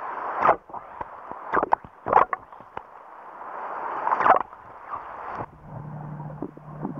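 Underwater water noise: surges of sloshing, gurgling water that swell and fade several times, with sharp crackles at their peaks. A low steady hum joins about five and a half seconds in.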